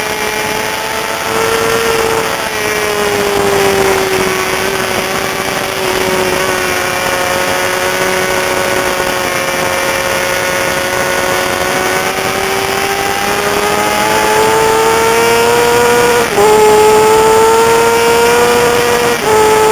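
Racing sportbike engine held at high revs. Its pitch sags slowly, then climbs again under acceleration, with two quick upshifts near the end.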